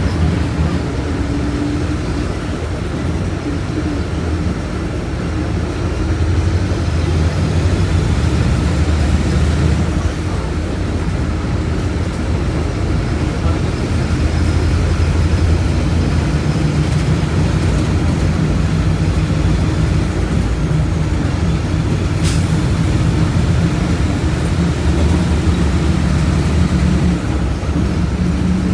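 Diesel engine of a Volkswagen 17.230 OD bus running steadily, its pitch and level swelling slightly as the engine speed changes, with one sharp click about two-thirds of the way through.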